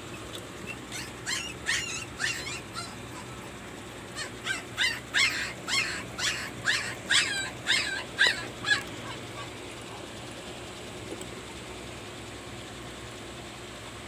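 An animal's short, high cries in quick succession: a few scattered ones over the first three seconds, then a louder run of about a dozen from about four seconds in, stopping just before the nine-second mark.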